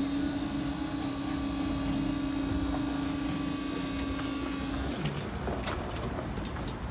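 A train's horn held on one long steady note, cutting off abruptly about five seconds in, over a low rumble of train noise. Scattered sharp clicks follow after the horn stops.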